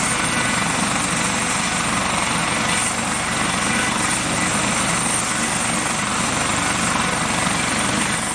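Eurocopter AS365 Dauphin air-ambulance helicopter running on the ground: a steady roar of engine and rotor with a high turbine whine held over it.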